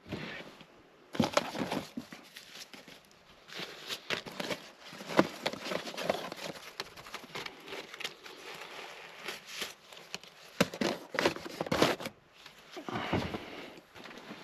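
Irregular rustling and crinkling, like packaging being handled, mixed with light clicks and knocks of objects being moved about in a small enclosed space.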